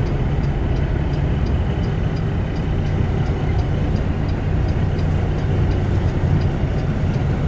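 Semi-truck's diesel engine idling steadily, heard from inside the cab while the tractor-trailer reverses slowly, with a faint regular ticking about twice a second.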